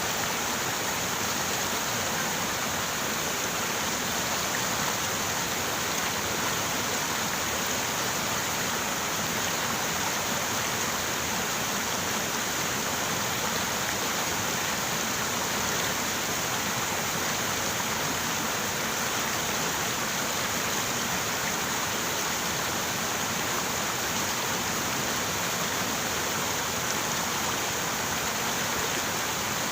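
River water rushing and splashing steadily over rocks, a constant even rush with no breaks.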